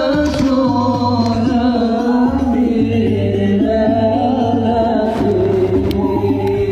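A voice singing a sholawat, an Islamic devotional song, in long held melodic lines over music with a low beat repeating about once a second.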